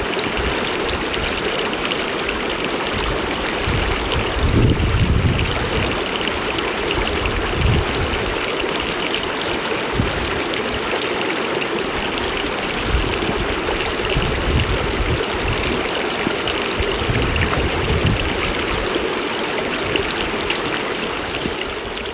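Shallow mountain stream rushing over flat stones right at the microphone: a loud, steady splashing wash, with a few deeper surges, the strongest about four to five seconds in.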